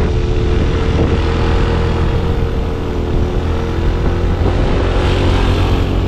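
Motorbike engine running steadily on the move, with wind rumbling on the microphone.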